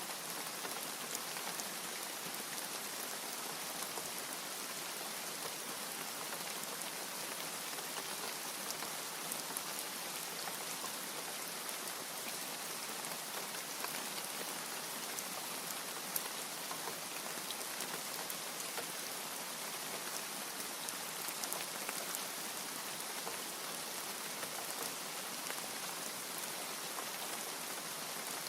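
Steady rain falling, an even hiss with scattered sharp ticks of individual drops; no thunder.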